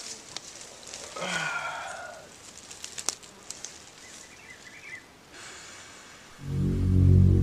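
Dry leaves crackling and rustling as a person lies back on forest leaf litter, with a brief sound of his voice about a second in. About a second before the end, background music with low sustained notes comes in and becomes the loudest sound.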